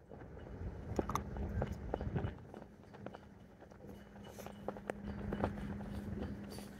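Scattered light clicks and rustles of hands working a fishing rig while baiting the hook, over a faint steady low hum.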